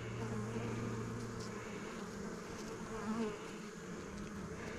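Honey bees buzzing around an opened hive: a steady low hum, with the wing tones of individual bees wavering slightly in pitch as they fly close.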